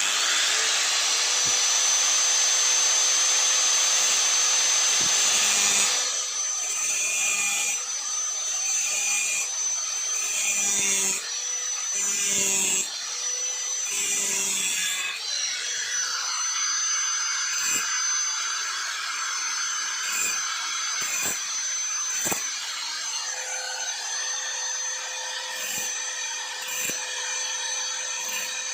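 Small handheld power tool starting abruptly and running continuously with a steady high whine, its sound breaking up and changing from about six seconds in as it works material, with a few short knocks.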